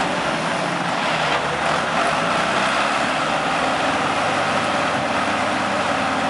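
Two farm tractors' diesel engines running steadily under load, pulling on a taut tow rope to drag a vehicle stuck in deep mud.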